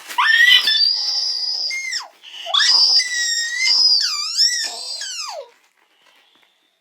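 Two long, loud, very high-pitched squealing screams, offered as a joke 'snore'; the second squeal wavers up and down near its end before cutting off.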